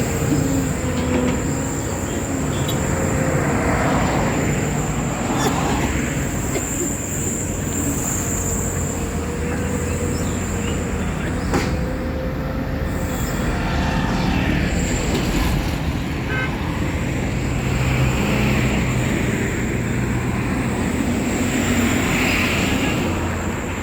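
Highway traffic: a steady mix of vehicles running past, with horns tooting now and then.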